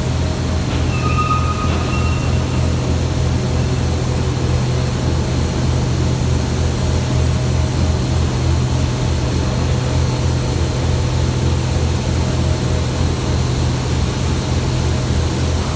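Loud, steady low rumble of heavy machinery in a ferronickel smelter, with a brief high whistle-like tone about a second in.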